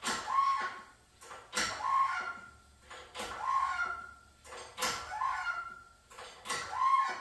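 Hand-pumped hydraulic engine hoist lifting an engine and transaxle. With each stroke of the pump handle there is a click and then a short squeak, about one stroke every second and a half, five strokes in all.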